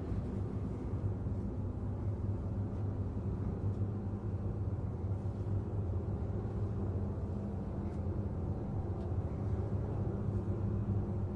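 Low, steady rumbling drone from a film's ambient soundtrack, holding without change.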